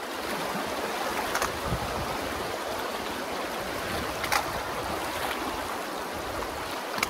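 Shallow, rocky river rushing steadily over stones as hikers wade through it. Three brief sharp knocks stand out, one about a second and a half in, one past the middle and one near the end.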